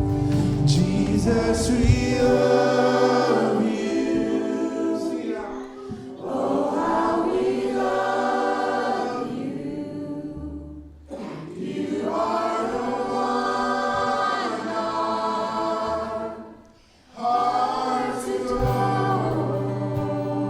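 Choral worship singing with musical accompaniment, in sung phrases of about five seconds separated by brief breaks.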